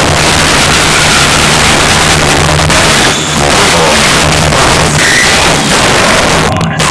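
Giant car-audio sound trailer playing electronic music at extreme volume, its deep bass notes stepping from one to another under a harsh distorted wash from the overloaded recording.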